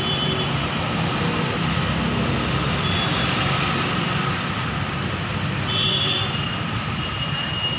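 Steady, loud rushing noise with a low hum underneath, and a couple of faint high tones near the start and around six seconds in.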